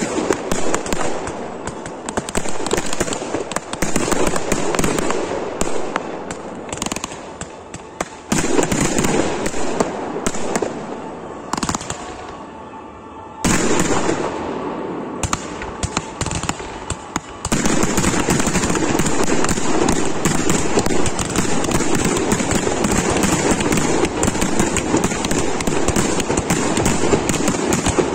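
Professional fireworks display heard close to the firing site: a dense barrage of launches, bangs and crackle from firework batteries and aerial shells. It thins out and quietens a little before halfway, picks up abruptly again, and becomes an unbroken barrage from about two-thirds of the way in.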